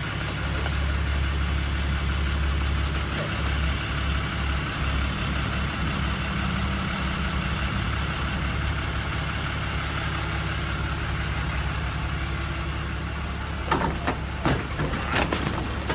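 A vehicle engine idling with a steady low hum. Near the end come a few sharp knocks and bangs.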